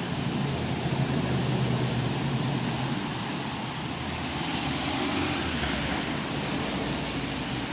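City traffic in the rain: a steady hiss of rain and wet road, with a vehicle's low engine rumble over the first few seconds, then a hiss of tyres on the wet road swelling and fading around the middle as a car passes.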